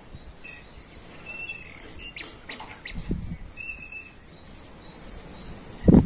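Small birds chirping a few short calls, over a low rumble of wind on the microphone, with a sudden loud rumble on the microphone near the end.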